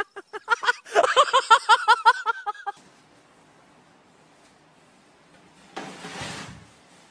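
A person laughing hard in rapid bursts, stopping short about two and a half seconds in. Near the end comes a brief burst of noise.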